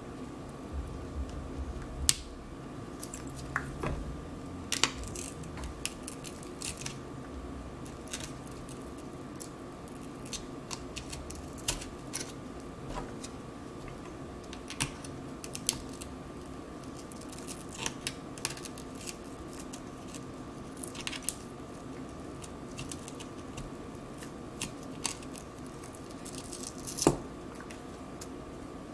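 Scattered small clicks and taps of broken iPad digitizer glass being picked from the tablet's frame and set down on a silicone mat, the sharpest click near the end, over a steady low hum.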